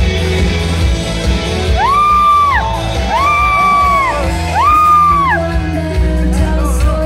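Loud pop music with a heavy bass beat, over which a voice holds three long high notes that rise, hold and fall away.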